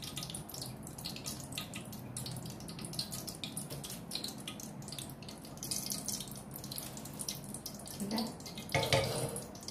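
Hot cooking oil sizzling in a wok with leftover bits of fried batter, a steady scatter of small crackles and pops. A couple of soft knocks come near the end.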